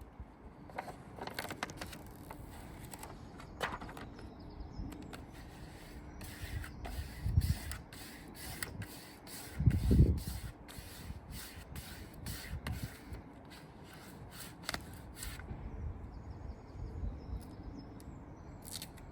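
Vinyl decal being rubbed down with a squeegee: a run of short scraping strokes and clicks over the sticker and its backing. Two dull knocks, the louder one about ten seconds in.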